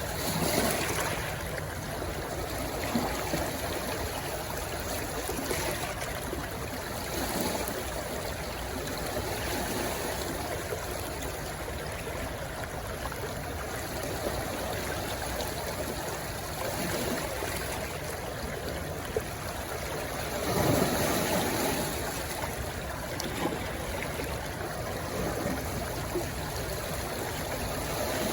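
Stream water rushing and gurgling steadily where it flows into the sea, with louder surges about a second in and around twenty seconds in.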